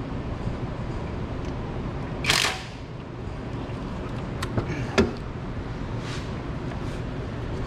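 Hand tools being handled at a car engine: a short rasping burst about two seconds in, then two sharp metallic clicks near the five-second mark, over a steady low background hum.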